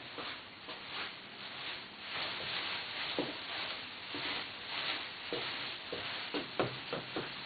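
Satin costume ribbons rustling and swishing as they are moved, with short light knocks that come about three a second near the end.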